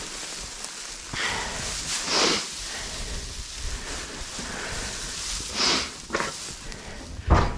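Loose straw rustling as it is shaken out and scattered over bedding in a pen, with several louder swishes and a sharp thump near the end.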